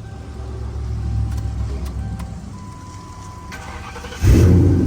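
Ford Crown Victoria V8 engine running steadily, with a thin steady tone for about a second midway. Near the end the engine sound jumps suddenly much louder, as in a sharp rev.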